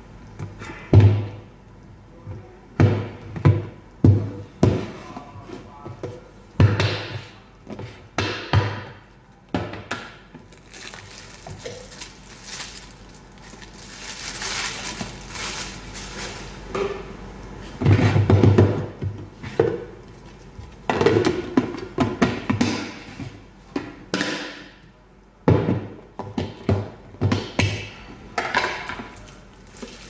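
Plastic food storage containers and their snap-lock lids being handled: an irregular series of knocks and hollow thunks as they are lifted out of one another and set down on a wooden table, with a stretch of rustling plastic.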